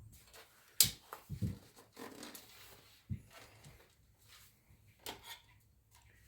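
Scattered handling noise: a sharp click about a second in, then a few softer knocks and taps as parts are moved about.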